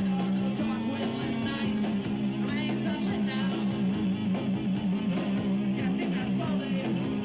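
Distorted electric guitar played loud in a live punk band, holding a low note that begins to waver in pitch about two seconds in.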